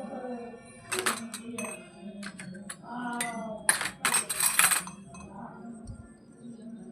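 Small plastic toy kitchen pieces being handled: a series of sharp clicks and clinks, then a short stretch of crinkly rustling about four seconds in. A pitched tone slides downward near the start and again about three seconds in.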